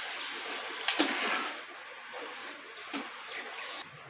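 Sugar, water and oil bubbling and hissing in a metal pot on a gas stove while a slotted metal spatula stirs them, at the start of cooking a sugar syrup. The spatula knocks against the pot about a second in and again about three seconds in.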